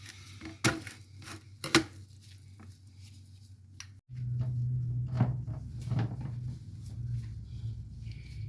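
A knife cutting bacon on a cutting board, with a few sharp knocks of the blade on the board. About four seconds in the sound cuts out, and a steady low hum follows with occasional light clicks and knocks.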